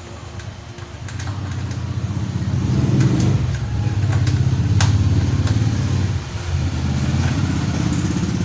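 A motorcycle engine running, getting louder over the first few seconds and then holding steady, with scattered sharp clicks and knocks of plastic body panels and fasteners being taken off.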